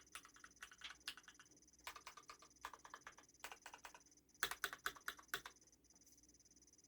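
Typing on a custom keyboard fitted with lubed Gateron Yellow linear switches: irregular keystrokes in short runs with pauses, a quick flurry about four and a half seconds in, then the keys stop about a second before the end.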